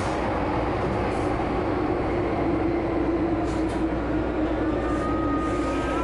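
Hong Kong MTR subway car running through a curve: the steady rumble and hum of the train in motion, with a thin high whine joining about five seconds in.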